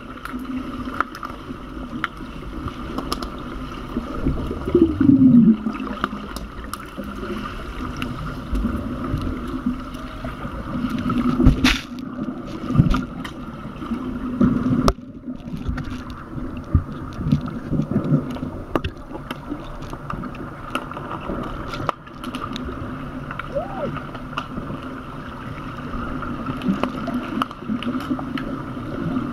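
Underwater sound in a swimming pool during underwater hockey play: a steady hum with many scattered sharp clicks and knocks, the sticks and puck striking the tiled bottom, and some bubbling. A brief falling squeal about five seconds in.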